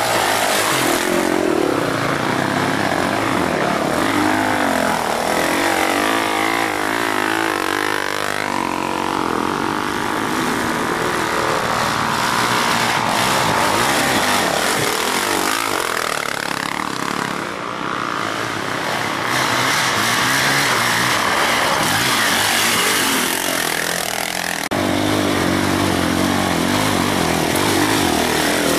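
Sport quad engines revving hard as several ATVs climb a steep dirt hill one after another, the pitch rising and falling with the throttle throughout.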